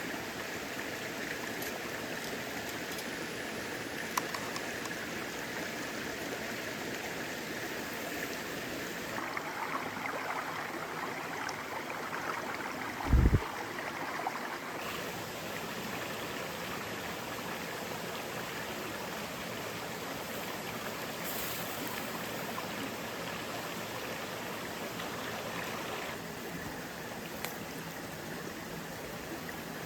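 Mountain stream flowing steadily, with one brief low thump about thirteen seconds in.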